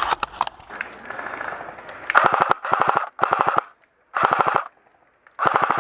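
Airsoft electric rifle firing on full auto: a few single shots, then five short bursts of rapid clicks in the second half.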